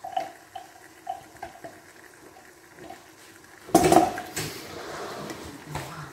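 Light clinks and scrapes as a garlic, parsley and oil mixture is tapped out of a small glass chopper cup into a pan of frying lamb liver; nearly four seconds in a loud burst of sizzling breaks out as it is stirred into the hot pan, settling into a steady sizzle.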